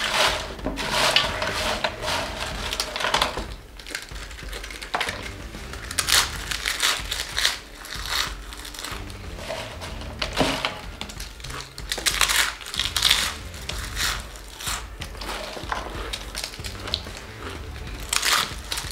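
Doritos tortilla chips being crunched in quick, irregular bursts during fast eating, mixed with the crinkle of loose chips as handfuls are grabbed from a metal tray.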